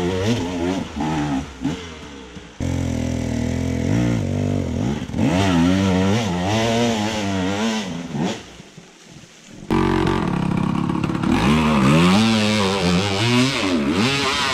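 Enduro dirt bike engines revving up and down over and over, the pitch rising and falling with the throttle, with a few abrupt changes where the sound cuts from one stretch of riding to another.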